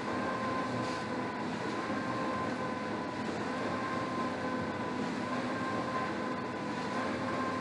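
Air rowing machine's fan flywheel whirring steadily with a humming tone, its pitch lifting slightly with each stroke about every second and a half.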